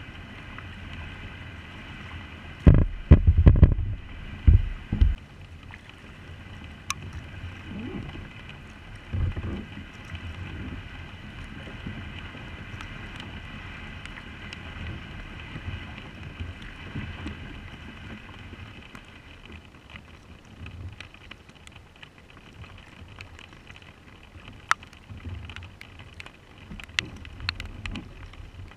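Kayak being paddled in the rain: a steady hiss of rain, with the low knocks and swashes of the paddle strokes and wind buffeting the bow-mounted camera's microphone, loudest in a cluster of low thumps about three seconds in. Near the end, sharp ticks as raindrops strike the camera and the hull.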